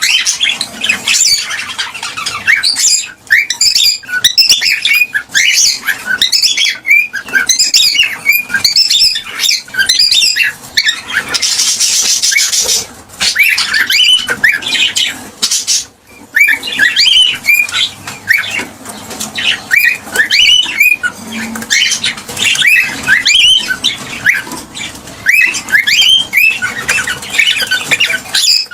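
Gray cockatiel chirping and whistling in a rapid, continuous stream of short rising and falling notes, with a noisy burst of about a second and a half near the middle.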